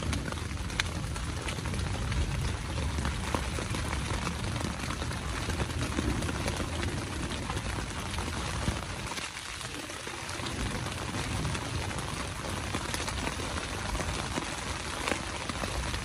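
Steady rain falling on the tent fabric and the wet ground, many small drop ticks over an even hiss with a low rumble beneath.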